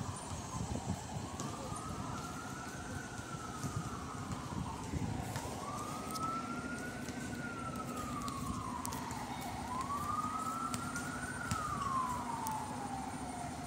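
Fire truck siren on a slow wail, sweeping up and down in pitch three times about four seconds apart, over a steady low drone: the ladder truck is responding to a call.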